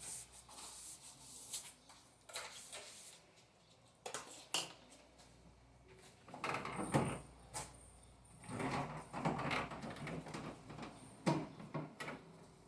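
Intermittent knocks, bumps and rubbing from cleaning a refrigerator: parts being handled and moved about and surfaces scrubbed, with one sharper knock near the end.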